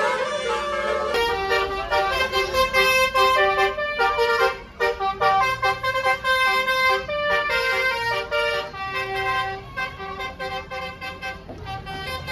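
A tour bus's multi-tone musical "telolet" horn playing quick, rhythmic runs of notes.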